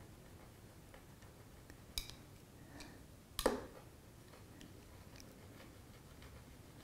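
Hardness-test pick tapping and clicking against the back of a phone: faint scattered ticks, a sharp click about two seconds in and a louder one about three and a half seconds in.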